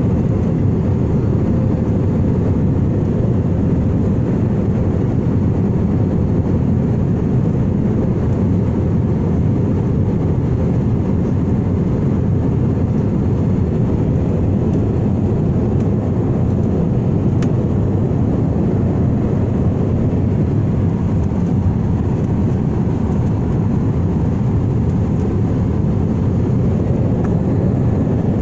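Steady in-flight cabin noise of an Airbus A320-family jet airliner: engine and airflow noise heard from a window seat as a continuous low rumble.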